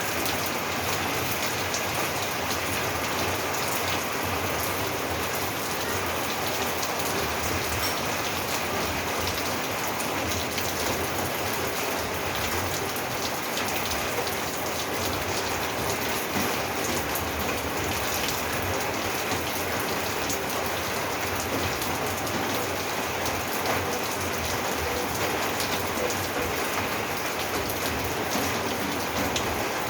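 Steady rain falling on a roof, a dense patter of drops.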